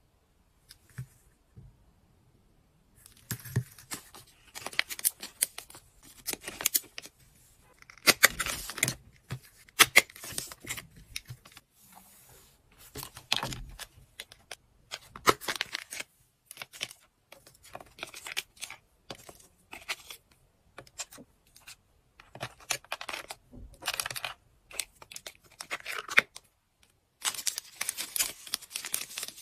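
Clear plastic packaging and a cellophane bag crinkling and rustling as they are handled, in irregular bursts with small clicks, starting about three seconds in and densest near the end.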